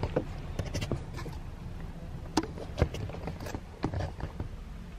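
Steady low rumble inside a car's cabin, with scattered light clicks and knocks, the sharpest a little after two seconds and near three.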